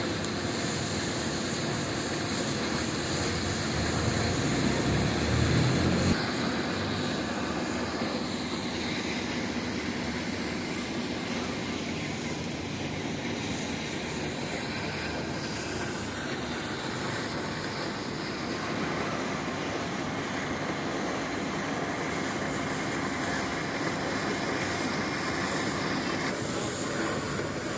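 Automatic gas-cutting machine's torch hissing steadily as it cuts through steel plate, with a louder low rumble for a couple of seconds about four seconds in.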